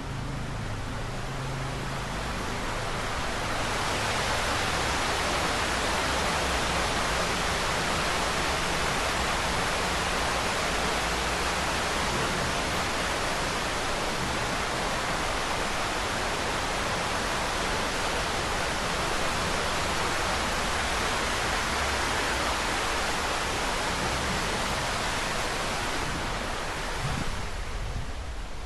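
Water rushing and splashing steadily at a park water feature, growing louder a few seconds in and easing again near the end.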